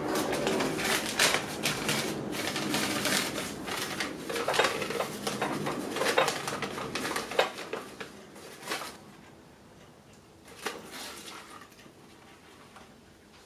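Paper coffee filter crinkling and rustling as it is opened out and pressed into a tall glass, dying away after about eight seconds, followed by two light knocks.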